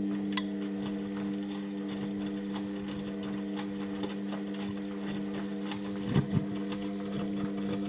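Indesit washing machine running with a steady hum and scattered light ticks, with a low knock about six seconds in.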